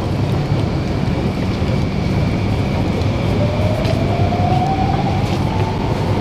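Electric MRT train rumbling in the station, with a motor whine that rises in pitch from about halfway through as the train gathers speed.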